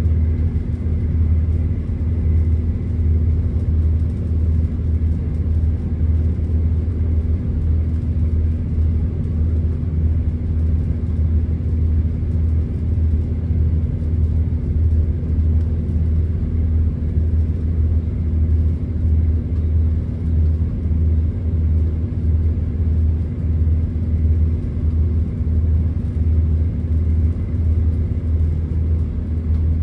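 Steady low drone heard inside a Class 170 Turbostar diesel multiple unit, from its underfloor diesel engine running, with a slight regular pulsing.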